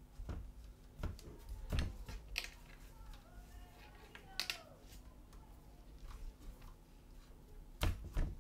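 Stiff leather pieces handled on a cutting mat: a series of light knocks and taps as they are picked up, turned and set down, the loudest about two seconds in and twice near the end, with a brief faint squeak near the middle.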